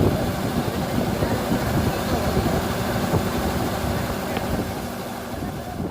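Combine harvester's engine running steadily, a dense low mechanical din that eases down slightly near the end.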